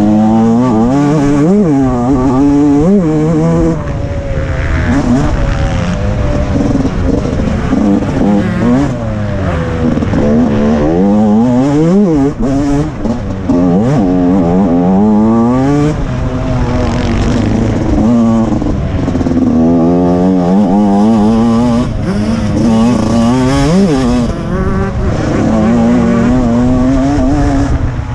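TM Racing 125 MX two-stroke motocross engine under hard riding, revving up and dropping back again and again as the rider accelerates through the gears and shuts off for turns and jumps.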